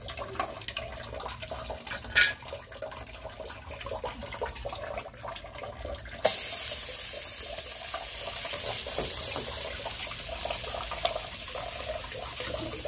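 Chopped garlic dropped into hot oil in a metal pot, starting a sudden, steady sizzle about six seconds in. Before that there is a sharp click and quieter handling sounds.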